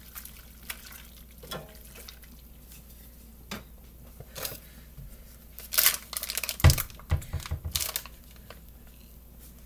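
Scattered kitchen handling sounds: a spoon in a pot of egg noodles, then plastic crinkling and tearing as American cheese slices are unwrapped, busiest in the second half, with a dull thump about seven seconds in.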